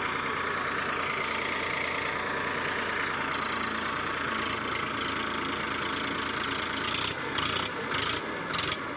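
Farmtrac Champion tractor's diesel engine running steadily under load in a tractor tug-of-war, with a few short rushes of noise near the end.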